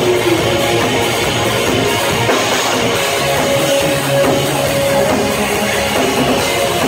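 Live rock band playing electric guitar, bass guitar and drum kit, recorded from within the audience.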